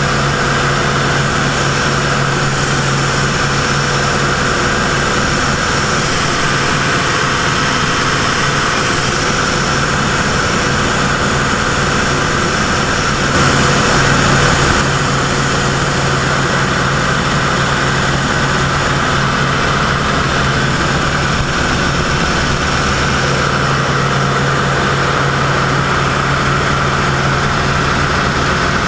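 Grumman F8F Bearcat's Pratt & Whitney R-2800 radial engine running steadily in flight, heard from inside the cockpit along with the propeller and the rush of air. It is a loud, even drone, briefly louder about halfway through.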